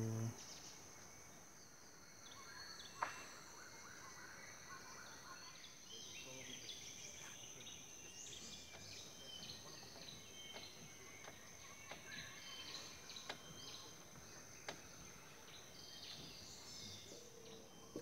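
Faint tropical rainforest ambience: a steady high-pitched insect drone, with many short bird calls and chirps from about six seconds in. A few sharp clicks, the loudest about three seconds in.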